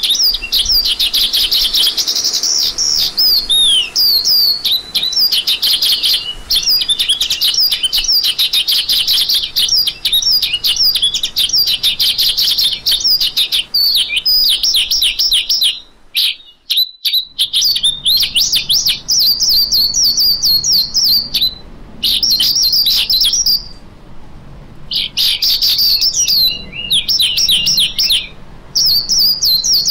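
Lark singing a fast, continuous stream of high chirps and trills, with a brief pause about halfway through.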